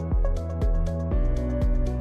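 Electronic background music with a steady beat of about two strokes a second and a change of chord about a second in.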